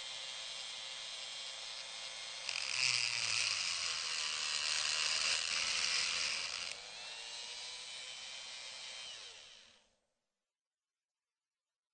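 Whirring, drill-like machinery sound effect for the animated Mars Exploration Rover: a steady whine, with a louder, harsher grinding layer from about two and a half to nearly seven seconds in, then fading out to silence about ten seconds in.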